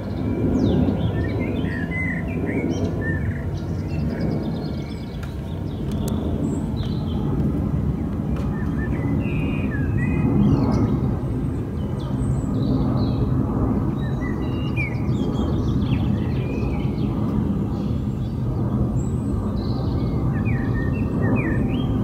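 Airplane passing overhead, a loud steady low rumble with a drone of several low tones that swells at times. Small birds chirp and call over it throughout.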